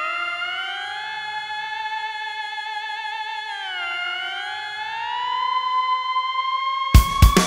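Pop song intro: sustained electronic tones that glide slowly down and back up in pitch. Drums and the full band come in near the end.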